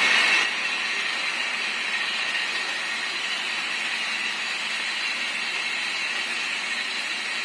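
HO-scale model Indian Railways WDM2 diesel locomotive, fitted with a Digitrax sound decoder, hauling a long train of about twenty wagons on the layout: a steady, even whirring hiss from the running train.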